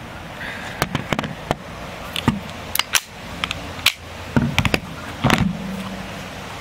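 Metal clicks and clacks of a Lahti M40 pistol being handled, its parts knocking together. The clicks come irregularly and bunch up in the second half.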